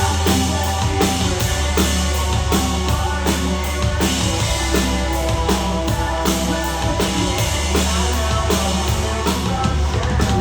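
Live rock band playing an instrumental passage between sung lines: full drum kit keeping a steady beat over bass and guitars.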